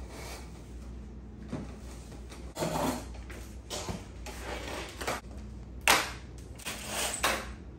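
Portable folding table being flipped over and folded: its metal legs and plastic top clatter, knock and click in a string of separate strokes, with the sharpest clack about six seconds in.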